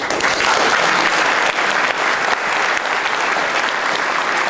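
An audience breaks into loud applause, which holds steady.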